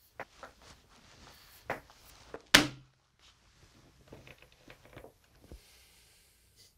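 A series of knocks and thuds in a small room, with one sharp bang about two and a half seconds in, followed by softer taps and rustling.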